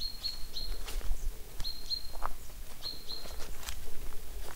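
A small songbird repeating short, high chirps in quick clusters of two or three, with a few sharp clicks and a low wind rumble underneath.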